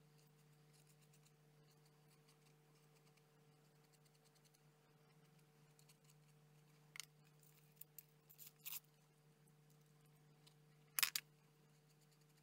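Quiet room with a steady low hum, broken by a few brief clicks and scrapes of hands and a glue brush working a paper-covered cardboard model; the loudest is a quick double click about eleven seconds in.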